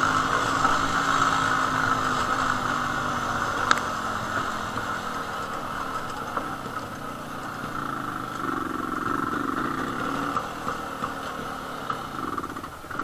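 Jawa 250/353's single-cylinder two-stroke engine running under way, heard from a helmet-mounted camera. Its pitch sinks gradually over the first few seconds, then rises and falls again about two-thirds of the way through, with one sharp click about four seconds in.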